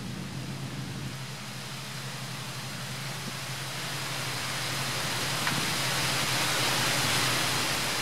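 Steady rushing noise that swells louder over the last few seconds, with a low hum underneath in the first second.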